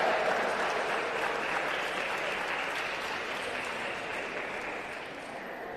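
Spectators applauding in an arena, slowly dying away, for the point that closes a table tennis game.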